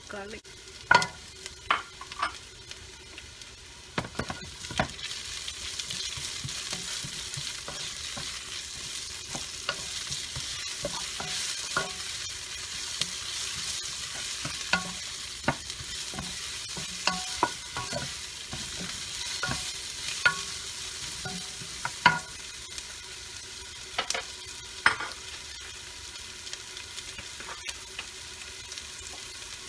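Chopped ginger and garlic sizzling in hot oil in a pan as they are sautéed to brown, with a utensil clicking and scraping against the pan as they are stirred every second or two.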